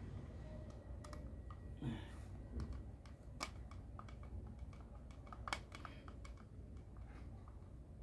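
Faint, irregular clicks and taps of a flat-head screwdriver and hard plastic parts as a hose reel is being screwed onto a plastic pressure washer body.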